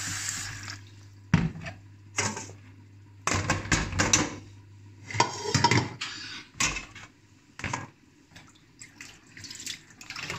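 Tap water running into a plastic bowl of boiled tripe pieces in a stainless-steel sink, stopping about a second in. Then a series of short splashes and knocks as the tripe is rinsed by hand and the bowl is handled.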